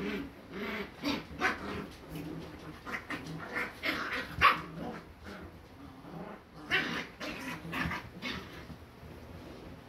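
Corgi puppies barking in short bursts while play-fighting, loudest about four and a half seconds in and again around seven seconds, dying down near the end.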